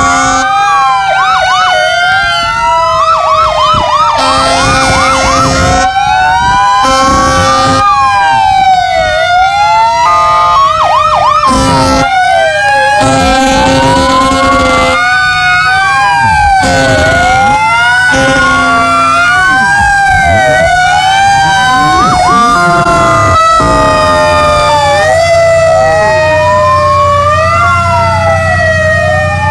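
Several emergency-vehicle sirens from a police car and a fire truck wailing at once, rising and falling out of step with each other, with repeated short horn blasts between them. A vehicle engine rumbles low near the end.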